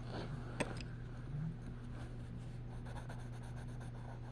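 Coloring strokes scratching on paper, faint, over a steady low hum. A single sharp click comes about half a second in.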